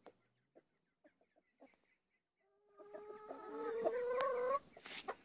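Flock of chickens clucking softly in short notes, then about two and a half seconds in a loud, drawn-out chicken call that rises slightly in pitch and lasts about two seconds. A short noisy burst follows near the end.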